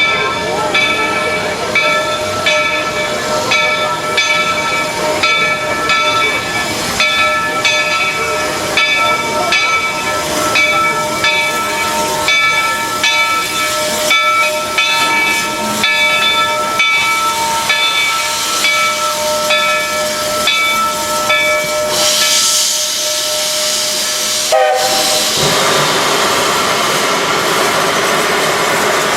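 Steam locomotive's bell ringing steadily, about one stroke every 0.7 seconds, for some twenty seconds. It stops, and then steam hisses loudly with a brief whistle-like tone, and a steady hiss of steam runs on.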